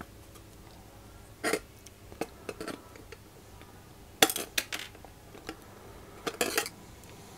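Small metal clicks and clinks of pliers working a bent wire link into its holes in a circuit board, in several short clusters of taps.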